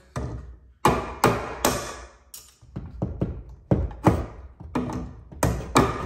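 Hammer striking a blue plastic electrical switch box to knock out its wire-entry tabs: about a dozen sharp knocks, roughly two a second.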